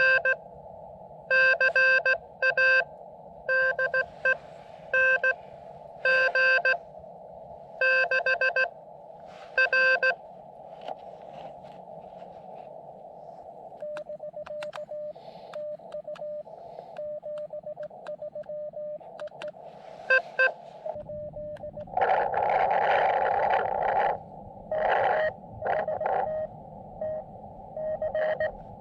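Morse code (CW) from a portable QRP ham radio. For the first ten seconds a loud, clean keying tone sends characters. Then a fainter tone of about the same pitch answers in Morse over receiver hiss, with a loud burst of noise about two-thirds of the way in.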